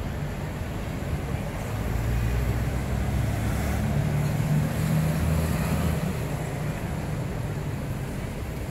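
A car driving past on the road, its engine hum swelling about two seconds in and fading after about six seconds, over a steady low rumble.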